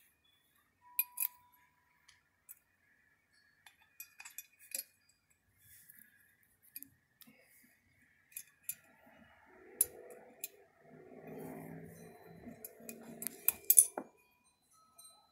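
Light metallic clicks and clinks of small valve-train parts being handled on a motorcycle cylinder head as a test valve spring and its collar are fitted to the exhaust valve. The taps are scattered, with a busier run near the end and the sharpest clicks about ten seconds in and just before the end.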